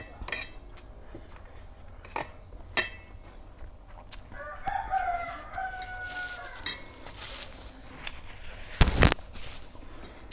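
A rooster crowing once, a gliding call of about two seconds midway through. Around it, a metal fork clicks against a stainless steel plate a few times, and a loud thump comes near the end.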